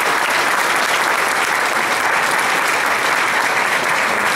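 Audience applauding steadily, a dense, even clapping from many hands.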